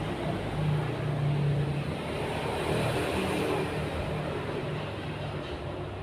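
A steady engine drone with a low, slightly wavering hum.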